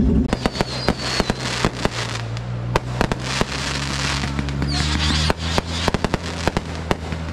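Fireworks and firecrackers going off: a fast, irregular run of sharp cracks and pops with a couple of brief high whistles. A steady low engine hum runs underneath.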